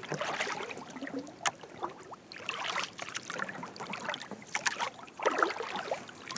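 Oars of an inflatable boat dipping and pulling through calm water, a splashing stroke roughly every two seconds, with drips and small knocks in between.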